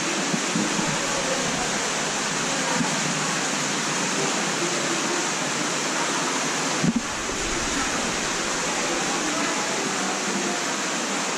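A steady, even rushing noise, with a short low bump about seven seconds in.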